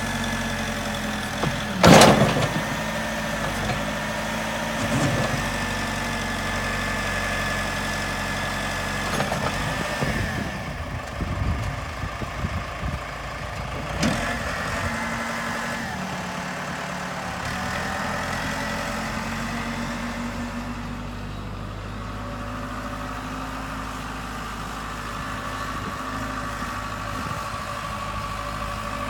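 Case 580 Super M backhoe's diesel engine running, with a sharp metallic knock about two seconds in and another around the middle, while the engine's pitch shifts up and down midway.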